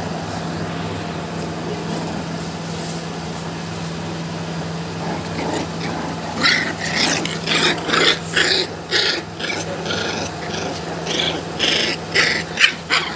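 American bully puppies at play, giving a rapid run of short yaps and growls from about halfway through, over a steady low hum.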